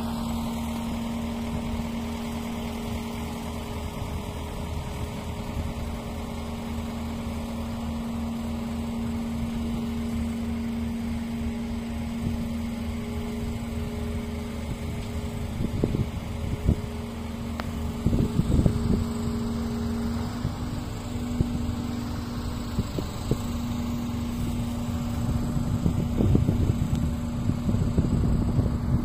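Mobile crane's engine running at a steady hum while lifting a load, with gusts of wind buffeting the microphone now and then.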